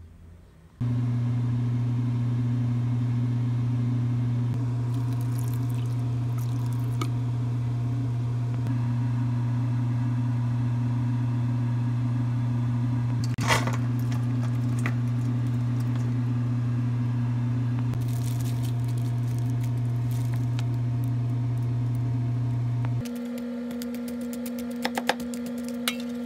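A steady low hum from a running kitchen appliance motor, with a single sharp click about halfway through. Near the end the hum changes to a different, higher steady tone, with a few light clinks.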